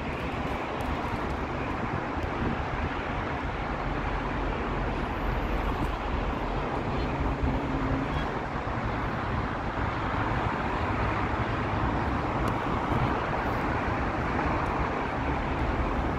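Steady noise of road traffic on a busy multi-lane road and overpass, heard from above as one even wash of many cars.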